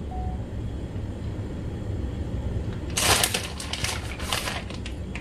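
Shredded cheese being sprinkled and spread by hand over a baking dish: a few short rustles, the strongest about three seconds in, over a steady low hum.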